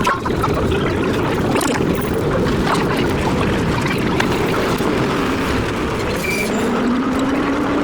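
Vintage Low-V subway train running: a steady rumble of steel wheels on rail with frequent clicks and knocks, and a low motor whine that rises slightly near the end.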